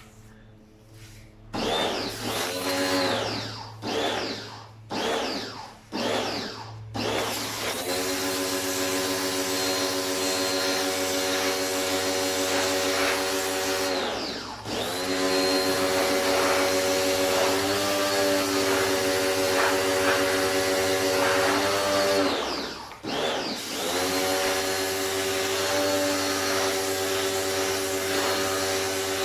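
Electric pressure washer's motor starting and stopping with the trigger. Several short bursts come first, each starting with a rising whine. Then come long steady runs of the motor over the hiss of the spray, cut off briefly twice.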